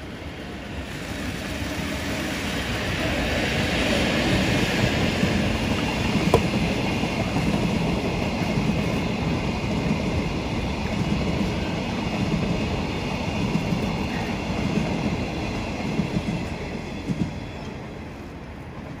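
ED75 electric locomotive hauling a train of long-rail flat wagons passing by. The rumble builds as the locomotive approaches, then the wagons roll past with wheel clatter and a single sharp click about six seconds in. The sound dies away near the end as the last wagon goes.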